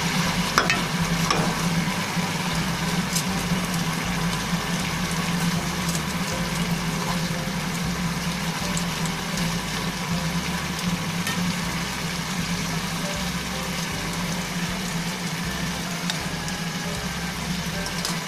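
Tomato sauce simmering and sizzling in a nonstick pan around pieces of fried fish, over a steady low hum, with a couple of light utensil clicks near the start.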